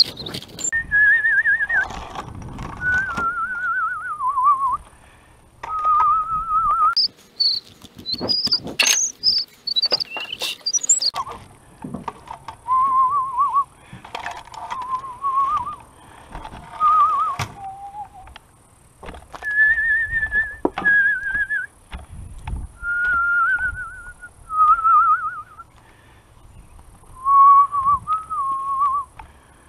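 A person whistling a wavering, tuneless melody in short phrases, with frequent sharp wooden knocks and clunks from firewood rounds and chainsaws being handled.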